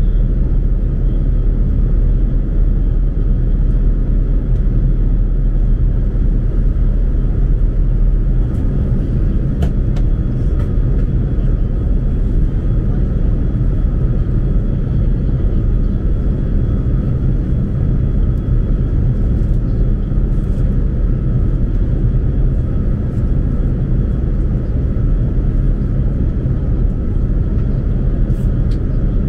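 Steady cabin noise of an Airbus A380 in flight: an even low rumble of engines and airflow with a faint steady high-pitched hum above it. A few faint light clicks.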